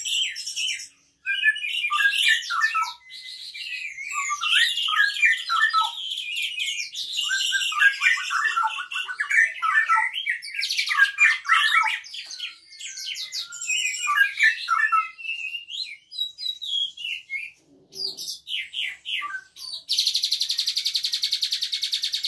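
Caged Javan pied starling (jalak suren) singing unprompted: a varied run of whistles, chirps and trills laced with imitated songs of other birds, canary among them. Near the end it breaks into a long, very fast buzzing trill.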